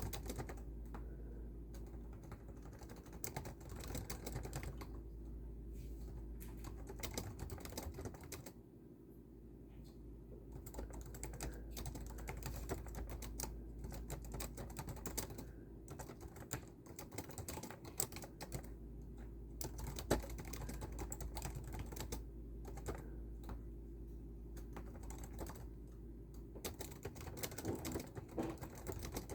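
Typing on a computer keyboard: a fast, uneven run of key clicks with a brief lull about nine seconds in, over a steady low hum.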